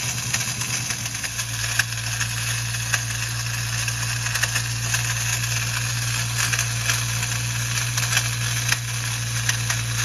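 Ford Mustang engine idling in neutral with a steady rattle from the bellhousing area. The clutch throwout bearing has been taken out of play and the noise is still there; the owner traces it to the starter, which he takes to be not fully disengaging and dragging on the flywheel.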